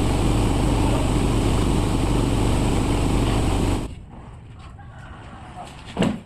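Sawmill machinery running steadily with a deep, even noise, cutting off abruptly about four seconds in. A single short, sharp sound comes just before the end.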